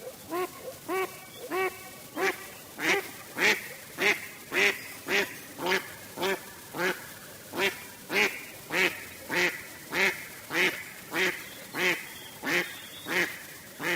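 A duck quacking over and over, about two quacks a second, getting louder after the first couple of seconds.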